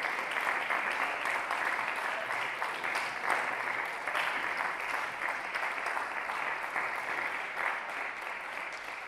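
Audience applauding: a dense, steady patter of many hands clapping, easing off slightly near the end.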